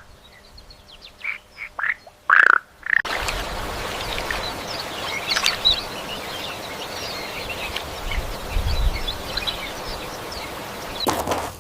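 Several short animal calls, one after another, then an abrupt change about three seconds in to steady outdoor ambience with a low rumble and many small, high chirps.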